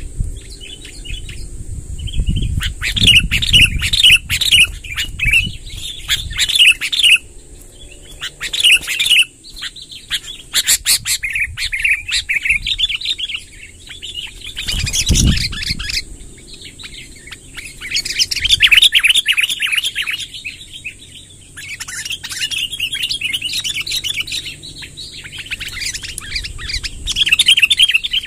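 Sooty-headed bulbuls singing long, rapid, rolling chattering phrases, each a few seconds long with short pauses between, over a steady high-pitched hiss. A low thud comes about halfway.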